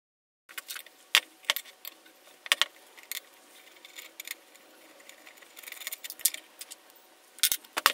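Scattered sharp metallic clicks and clinks of a hand tool and steel parts being handled on a cast-iron milling vise as it is taken apart, with a few taps in quick succession about six seconds in.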